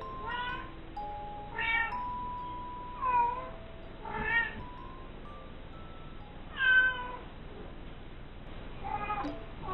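Mother cat meowing repeatedly, about six calls spread a second or two apart, calling for her kitten, over soft background music.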